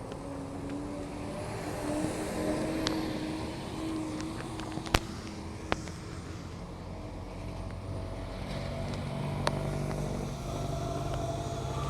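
Road traffic: vehicle engines running, with their drone growing stronger in the second half, over a steady wash of traffic noise. Two sharp clicks about five seconds in.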